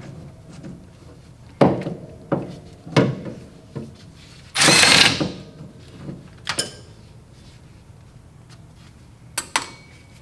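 Metal tools and engine parts being handled while valve covers are taken off a V8: a string of sharp clanks and knocks, and about halfway a louder scraping rush lasting under a second.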